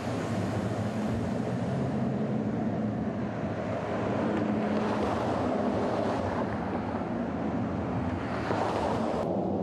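Outdoor traffic and wind noise on the microphone: a steady rumble and hiss that swells twice as vehicles pass, with the hiss cutting off abruptly just before the end.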